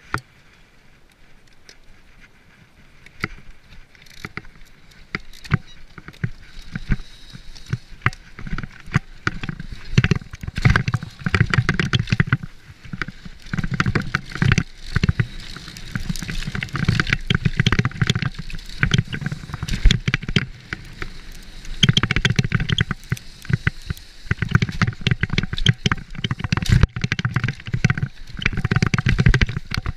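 Santa Cruz V10 downhill mountain bike running fast down a dirt trail: tyres on dirt, wind rumbling on the microphone, and many sharp rattles and knocks from the bike over bumps. It gets louder over the first ten seconds or so as the bike picks up speed.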